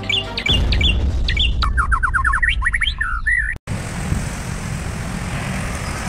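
A songbird singing a quick run of chirps, whistles and trills over a low background rumble. About three and a half seconds in it cuts off abruptly, leaving steady background noise.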